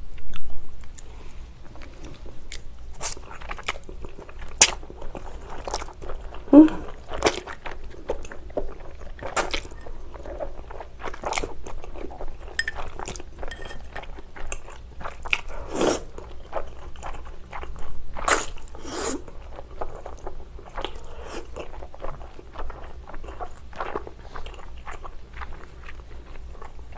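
Close-miked eating: wide Chinese glass noodles dipped in spicy sauce being slurped and chewed, an irregular run of wet smacks and short clicks.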